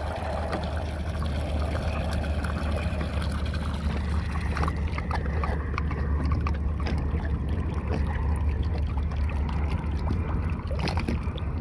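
Bilge pump discharge: a stream of water pours from the hull's through-hull outlet and splashes into the harbour, thinning to drips about five seconds in. A steady low rumble sits underneath.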